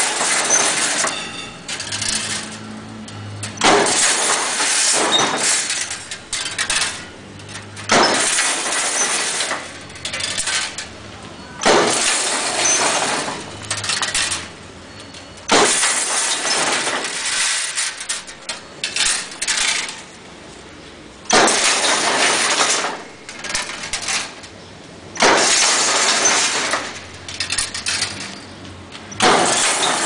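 Semi-automatic crimped wire mesh weaving machine running through its weaving cycle, giving a loud burst of mechanical noise that starts sharply and lasts a second or two, about every four seconds, with one longer pause midway.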